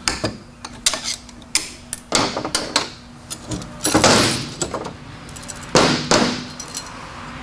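Metal clicks, clanks and scraping as a TH350 automatic transmission's clutch drum is taken apart by hand with a screwdriver, its snap ring and clutch plates knocking on the drum and the steel bench. Several short sharp knocks, with a longer scraping rattle about four seconds in and another burst of clanks about six seconds in.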